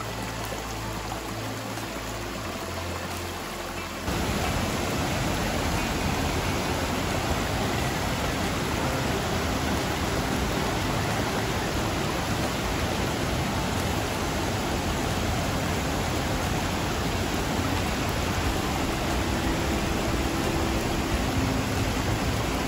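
Background music for about the first four seconds, then a sudden switch to the steady rush of river water spilling over a low weir and cascading down rocks.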